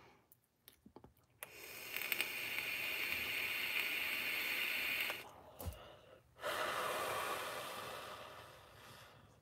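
A person smoking: a long drag drawn in as a steady hiss lasting about four seconds, then after a short pause the smoke is blown out in a long breath that fades away.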